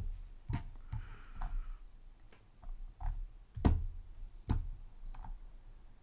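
Computer mouse clicking, about nine short clicks at an irregular pace as points of a drawing are picked, the loudest a little past halfway.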